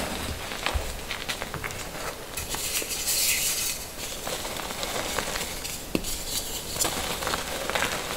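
Dyed gym chalk being crushed and squeezed in the hands: dry, crunchy crumbling with many small crackles as the blocks break into powder. A louder stretch of crunching comes about three seconds in.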